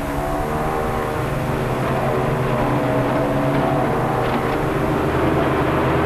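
Tractor engine and PTO-driven Claas Jaguar 40 trailed forage harvester running together while picking up a grass swath: a steady mechanical drone.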